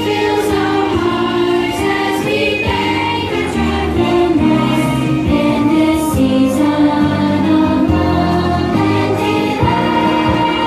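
Children's choir singing a holiday song over instrumental accompaniment with a steady, changing bass line.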